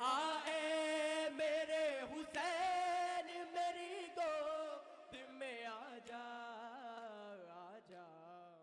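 Male voices chanting a noha, a Shia lament, in long wavering held notes, with sharp slaps of chest-beating (matam) now and then. It grows gradually quieter toward the end.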